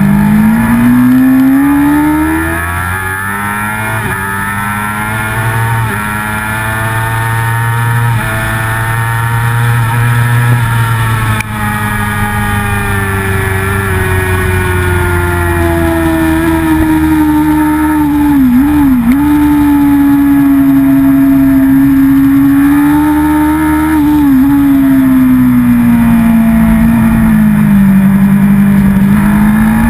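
Racing motorcycle's engine heard from its own onboard camera at race pace: the engine note climbs at the start, holds high along the straight with two brief dips in pitch, drops away near the end as the bike slows for a corner, then climbs again.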